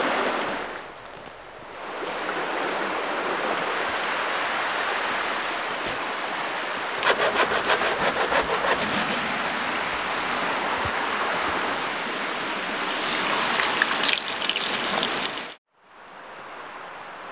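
Water rushing over rocks in a small river, a steady hiss. About seven seconds in, a hand saw cuts through a branch in quick strokes for about two seconds. A louder, crackly stretch follows, then the sound cuts off suddenly near the end and a quieter steady background takes over.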